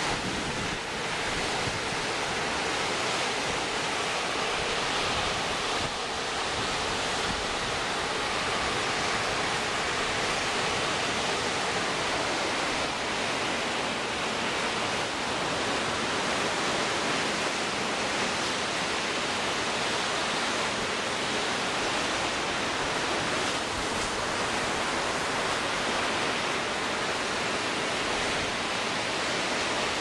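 Storm-driven lake waves breaking on the shore in a strong gale: a steady, unbroken rush of surf and wind.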